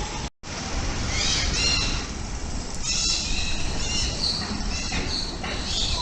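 Mixed birds in a tropical aviary calling: many short chirps and whistles, overlapping and repeated, over a steady background hiss.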